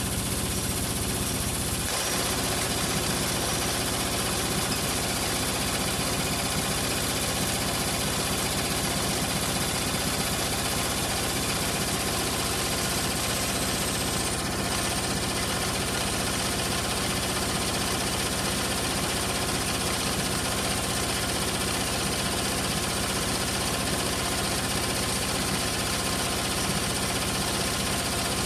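Hoover Logic washing machine spinning its drum at a steady speed, the motor holding an even, constant hum with a hiss over it.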